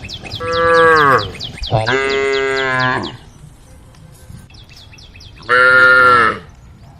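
Cows mooing: three short calls, the first falling in pitch at its end, the last one a few seconds after the first two. Rapid, evenly spaced high chirping runs behind them.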